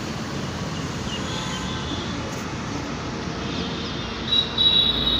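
Steady road traffic noise, with a high, steady whine coming in about three and a half seconds in and growing stronger near the end.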